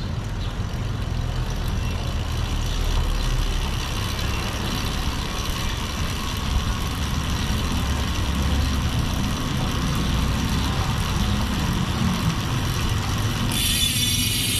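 Fulcrum Racing 4 DB rear wheel spinning on a bike stand with the crank turned by hand, the chain and cassette running with a steady whir. About a second before the end the pedalling stops, the wheel coasts, and the freehub ratchet starts a loud high buzz.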